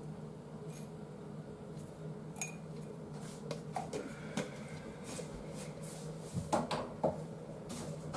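Light clinks and taps of a small metal spoon against a glass jar as salt is spooned out and the jar is handled, with a few louder knocks near the end, over a steady low hum.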